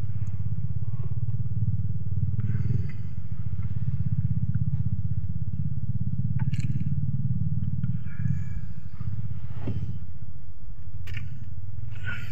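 Small fishing boat's engine running steadily with a fast, low putter, with a few light knocks over it.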